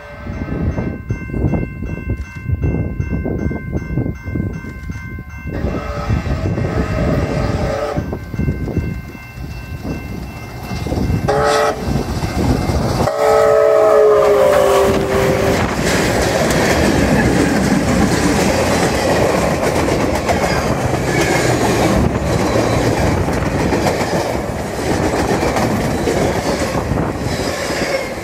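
Canadian Pacific 2816, a 4-6-4 Hudson steam locomotive, sounds its steam whistle, a short blast then a longer one that drops in pitch as it goes by at speed. Its running gear and then its passenger cars follow with a loud rushing rumble and clickety-clack over the rails. A grade-crossing bell rings steadily in the first few seconds.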